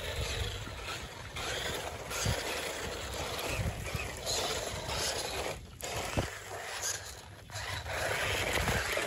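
Radio-controlled rock crawler trucks driving over a dirt track and through dry leaves and sticks, their tyres crunching and scraping, with a few brief knocks.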